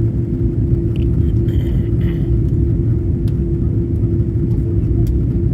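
Airbus A330 cabin noise in flight: a steady, loud low roar of engines and rushing air, with a constant hum running through it.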